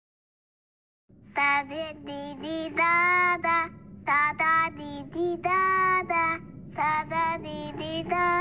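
A child's high voice singing a slow melody in three phrases of held notes, starting after about a second of silence.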